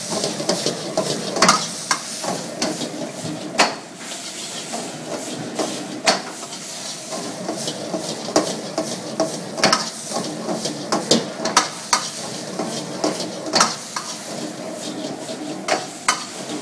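Food sizzling in a hot wok while a metal ladle stirs it, scraping and knocking against the pan in frequent, irregular clanks over the steady hiss of the frying.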